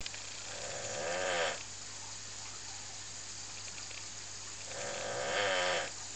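A dog snoring: two drawn-out snores about four seconds apart, each lasting about a second.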